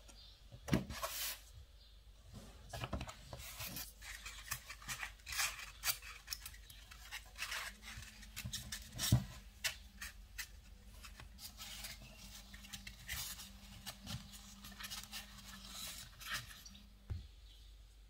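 Hands and a small blade working fondant: irregular light scrapes, taps and rubs as strips are cut and then folded and pressed into a bow.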